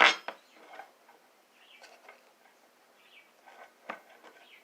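Hands working with craft materials on a bench: a sharp rustling tap right at the start, then faint scattered ticks and rustles, and a sharper click near the end.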